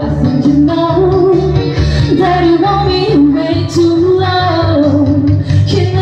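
Singing led by a woman's voice over an amplified backing track with a bass line, played through loudspeakers.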